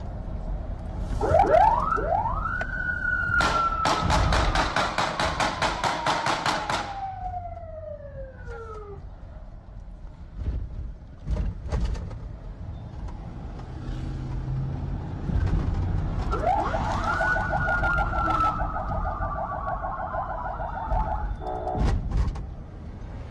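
Electronic sirens on security-convoy vehicles: a quick rise, then a long falling wail with a few seconds of rapid pulsing, twice, over low traffic rumble heard from inside a following car. A few sharp cracks cut in around the middle and again near the end.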